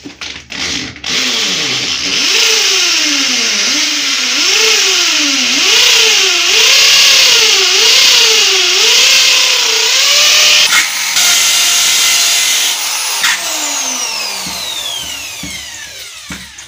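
Electric hand drill boring holes into a wall, its motor whine rising and falling about once a second as the bit bites and the trigger is worked. Near the end the motor spins down with a long falling whine.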